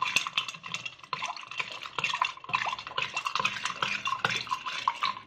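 Steel spoon stirring in a glass mug with ice cubes, clinking and scraping against the glass and the ice in a quick, uneven run of clicks.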